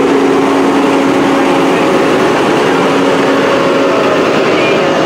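Diesel engine of a modern New Holland tractor running steadily as it drives slowly past close by, with more tractors following; a steady hum runs under the engine noise.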